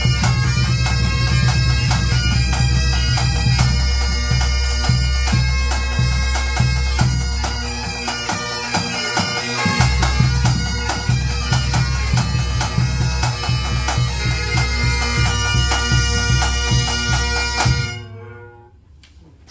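Pipe band of Great Highland bagpipes and snare, tenor and bass drums playing a lively tune, the pipes' drones holding steady under the chanter melody and the snares rattling out quick strokes. About eighteen seconds in, the band stops together and the sound dies away in the room.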